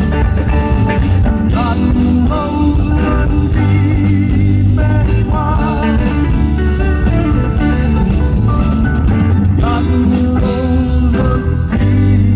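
A live rock band playing, with electric guitars, bass, drum kit and congas.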